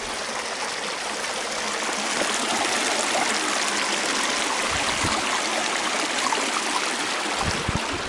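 Small stream splashing and trickling over rocks: a steady rush of running water, with a few low thumps near the end.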